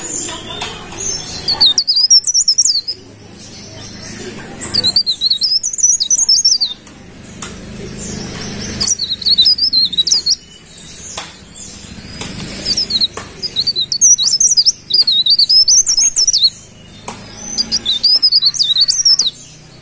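Cikrak daun (leaf warbler) singing: fast, high twittering phrases of about one to three seconds each, six of them with short pauses between.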